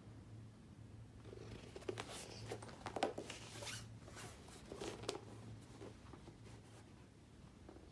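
Handling of a Louis Vuitton Titanium pochette, its heavy metal zipper being worked, with irregular scratchy rasps and sharp clicks about a second in that fade out past the middle. A faint low hum sits underneath.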